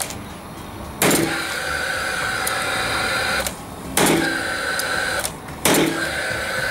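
Paslode cordless gas framing nailer firing three nails into timber: about a second in, about four seconds in and near the end. After each shot the nailer's fan runs with a steady whir for a couple of seconds.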